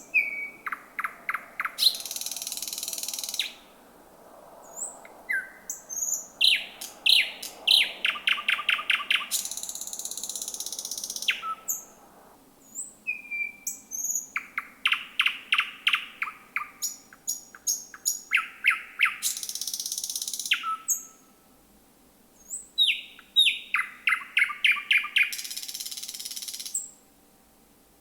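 Thrush nightingale singing at night in repeated phrases of high whistles, fast dry rattling clicks and loud buzzing trills. There are pauses between the phrases, three of them.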